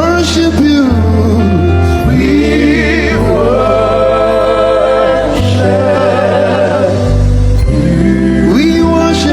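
Gospel worship music with singing: a voice sliding between long held, wavering notes over a steady bass line.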